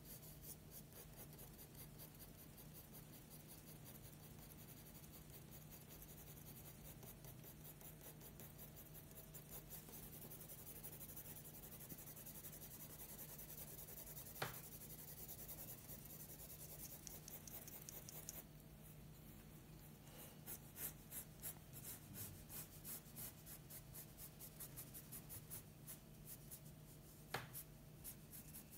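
Graphite pencil shading on drawing paper: faint, quick, repeated scratching strokes that grow denser and louder in the second half, with two sharp clicks, about halfway and near the end.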